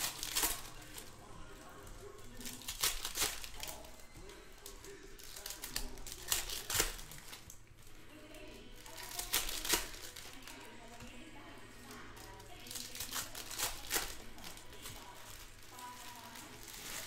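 Foil trading-card pack wrappers crinkling and being torn open by hand, in about five short bursts a few seconds apart.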